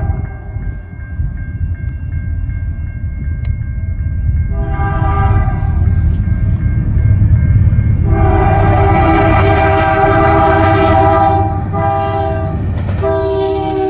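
Illinois Central diesel locomotive leading an intermodal train, sounding its multi-chime air horn at a grade crossing in several blasts: a shorter one about five seconds in, then long, short and long near the end, with the horn's pitch dropping as it passes. A low rumble of the locomotive and train grows louder under the horn, and a steady crossing bell rings in the first few seconds.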